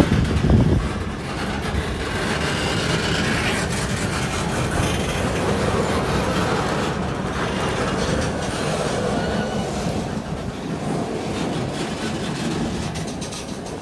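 Freight train of empty open-top steel gondola cars rolling past at close range, the wheels rumbling steadily on the rails. It is a little louder in the first second.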